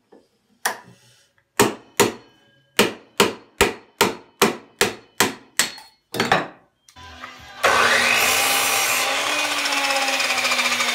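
Hammer blows, about two a second, for several seconds. After a short gap a miter saw's motor starts with a rising whine and runs steadily, stopping abruptly near the end.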